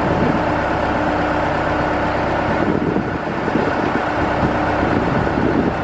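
Telehandler engine running steadily at idle close by.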